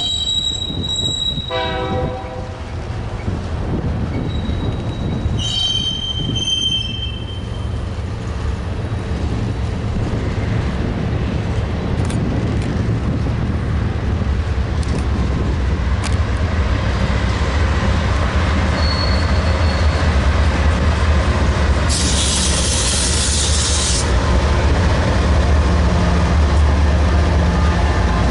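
Freight train passing: high wheel squeals over the first few seconds and a short horn note about two seconds in, then a low rumble from the train that builds steadily louder. A two-second hiss sounds late on.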